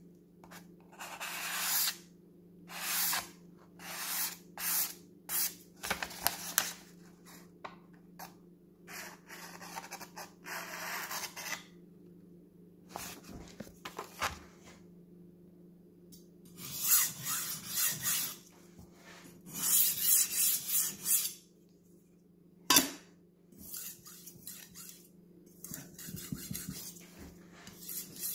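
Steel kitchen knife blade stroked back and forth across a sharpening stone, a run of scraping strokes about a second apart, with quicker runs of strokes about two-thirds through. A single sharp click comes near the end, and a faint steady hum lies underneath.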